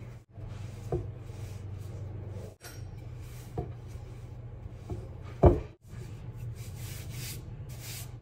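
Rolling pin rolling and pressing bread dough on a floured counter: a soft rubbing over a steady low hum, with a few knocks, the loudest about five and a half seconds in.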